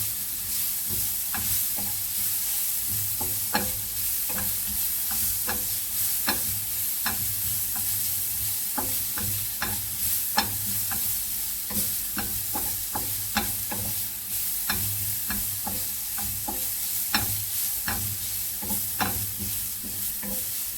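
Grated carrot sizzling in a little oil in a frying pan while it is stirred, the utensil clicking and scraping against the pan at frequent, irregular moments over a steady hiss.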